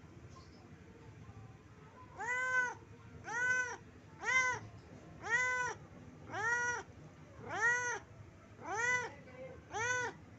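Domestic cat meowing over and over, eight rising-and-falling meows about one a second, starting about two seconds in. It is a pet cat begging its owner for food.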